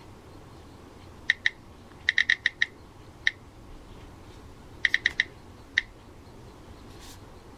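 iPhone/iPod touch key-click sounds: about a dozen short, high ticks tapped in quick irregular groups, like entries being keyed in on a touchscreen keypad.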